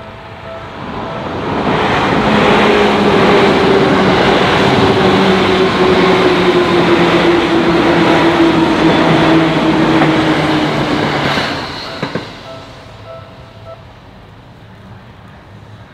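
A yellow Seibu Railway electric train passes over a level crossing: the noise of the wheels on the rails swells in, stays loud for about ten seconds with a motor whine that slowly falls in pitch, then dies away with a sharp click near the end. The crossing's electronic warning bell rings at the start and again after the train has gone.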